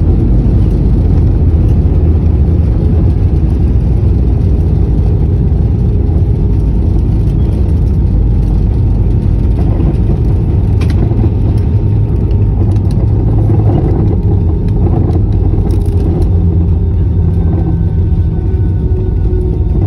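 Loud, steady low rumble inside the cabin of an AirAsia Airbus A320-family airliner during its landing rollout, ground spoilers up: engine and runway wheel noise, with a few faint clicks partway through.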